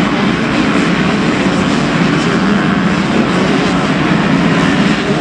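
A pack of motocross bikes racing round the track, several engines running hard at once in one steady, loud, overlapping drone.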